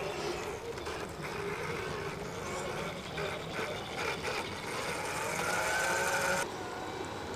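Electric motors and gearboxes of radio-controlled crawlers whining, the pitch wavering up and down with the throttle, over outdoor background noise, with a few clicks midway. The sound changes abruptly near the end.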